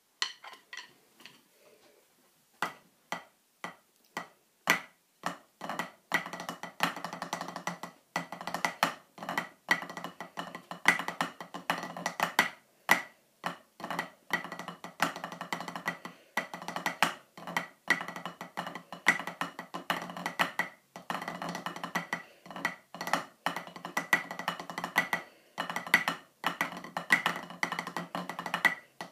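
Drumsticks striking a rubber-topped drum practice pad: a few single strokes at first, then fast continuous stick patterns and rolls. From about six seconds in they play along to a steady music track.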